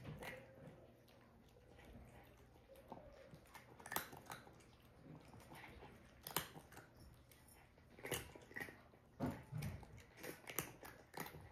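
A tabby-and-white cat eating dry kibble from a ceramic bowl: faint, irregular crunching as it chews, with a handful of louder crunches spread through.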